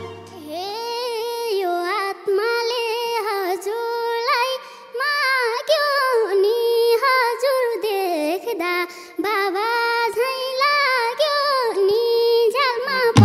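A young girl singing a Nepali folk (lok dohori) melody solo, without drums or instruments, in long held notes with wavering ornaments.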